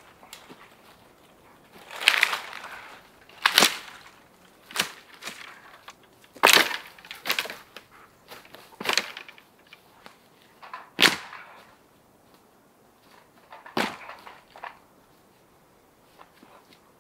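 Wood cracking and knocking: about eight sharp, irregularly spaced strikes or snaps, the loudest about two seconds in and near eleven seconds.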